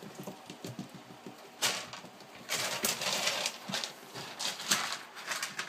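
Shichon puppies moving about in and around their crate: rustling and scuffling with many small taps and clicks, and faint little squeaks.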